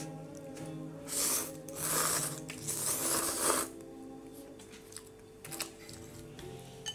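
A person slurping instant ramen noodles off chopsticks: three loud drawn-in sucks in quick succession, then a few faint clicks near the end.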